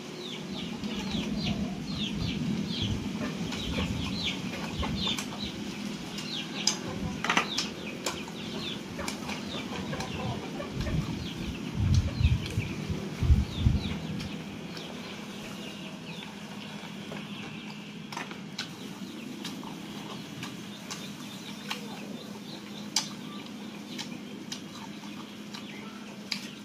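Chickens clucking and cheeping in the background, with a rapid run of short high chirps over the first several seconds. A few low thumps about halfway through.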